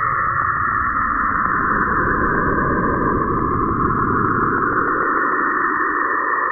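Saturn's radio emissions converted into sound: a dense, steady hiss laced with rapid, evenly spaced ticks, about ten a second, over a low rumble that thins out near the end.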